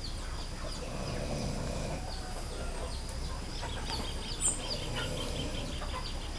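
Farmyard background: chickens clucking and small birds chirping, with a brief louder call about four and a half seconds in.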